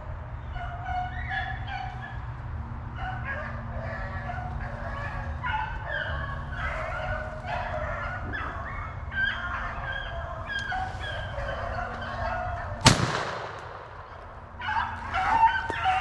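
A pack of rabbit hounds baying on a running rabbit's trail, with many overlapping short calls, over a low steady rumble. About 13 seconds in, a single loud gunshot cracks and echoes away, and the baying picks up again just before the end.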